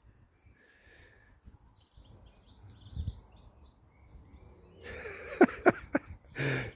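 Small garden birds chirping faintly, with a few thin falling whistles. Near the end comes a loud patch of rustling and clicks close to the microphone.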